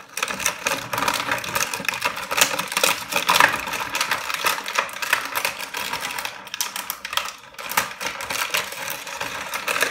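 Plastic and cardboard packaging handled as an action figure is worked out of its box: a dense run of irregular clicks, crackles and rustles.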